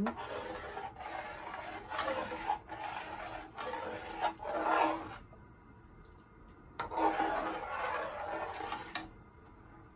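A long spoon scraping and rubbing round the bottom of a large aluminium pot as it stirs thickening carrot-and-milk pudding. It goes in uneven strokes through about the first five seconds, pauses, then starts again for about two seconds near the end.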